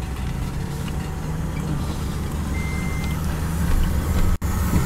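Toyota's engine and road rumble heard from inside the cabin as it is driven and turned around, getting louder near the end. One short high beep about halfway through, and the sound cuts out for an instant near the end.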